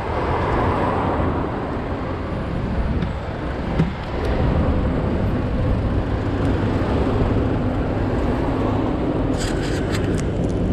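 Steady city street traffic and road noise with a heavy low rumble, heard from a camera moving along the road. A few brief clicks or rattles come near the end.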